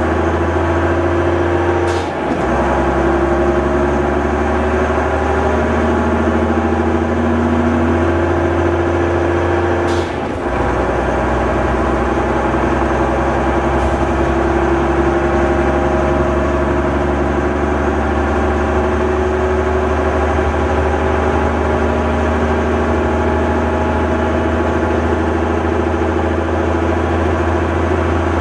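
Leyland Olympian double-decker bus engine pulling steadily, its note climbing slowly. About two seconds in and again about ten seconds in, the engine sound dips briefly at a gear change and a short, sharp 'sneeze' from the gears cuts through.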